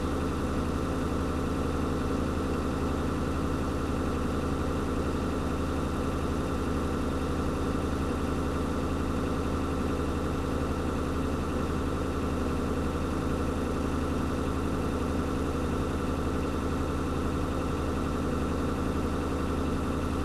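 Fire engine's engine running steadily at a constant speed, heard from inside the cab while its pump feeds the foam hose.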